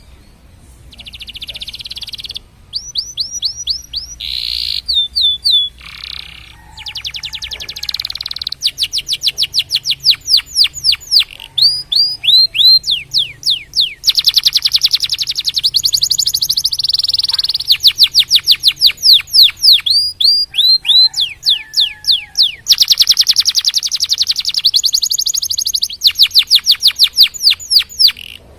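Domestic canary singing a long, varied song: rapid trills alternating with runs of repeated whistled notes that sweep up or down in pitch.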